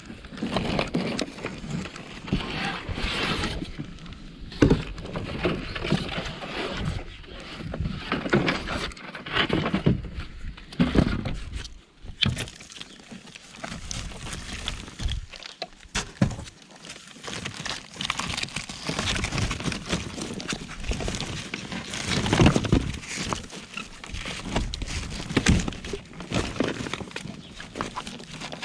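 Rubble and debris in a skip being shifted and rummaged through: irregular knocks, scrapes and clatter, with rustling between them.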